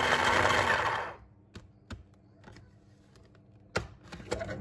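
Small electric mini chopper running briefly, its blade chopping onion, then stopping about a second in. A few light clicks and knocks follow as the plastic bowl and lid are handled.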